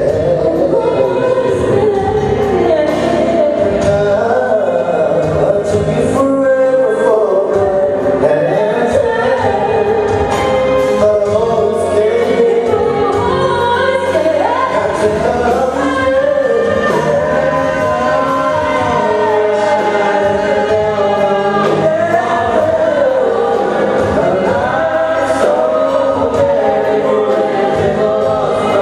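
Live band playing a song with sung vocals over drums, loud and unbroken.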